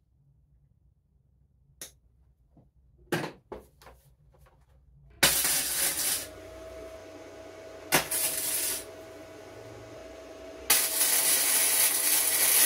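MIG welder's arc crackling and hissing in three short welds on steel: a burst about five seconds in, a briefer one around eight seconds, and a longer one near the end, with a steady tone sounding underneath. Before the welding, a few light clicks.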